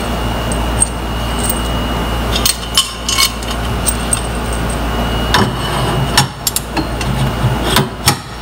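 Metal parts clinking and knocking as a clamp is fitted with a bolt and washer onto a metal crossbar tube and the tube is set into the pedicab's steel frame. Scattered sharp clicks, more of them in the second half, over a steady low hum.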